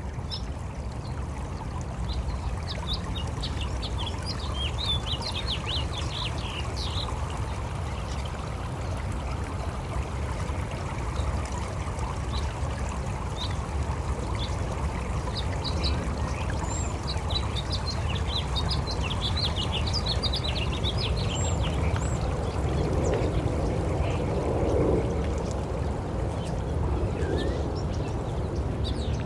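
Birds chirping over a steady rushing, water-like noise and a low rumble, like a nature soundscape. The chirping thins out after about twenty seconds, and a lower call comes in near the end.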